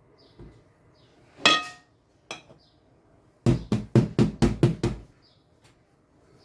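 Cake mould knocked about eight times in quick succession on the kitchen counter to settle the batter, after a single ringing clink of kitchenware.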